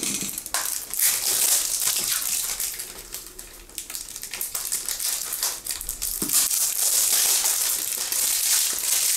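Plastic wrapping on a CD crinkling and tearing as it is pulled off: a dense rustle full of small clicks that eases off about three seconds in and then picks up again.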